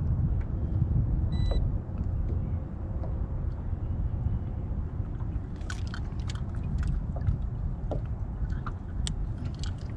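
Steady low rumble on a fishing boat with scattered clicks and knocks of handling, and a short beep about one and a half seconds in.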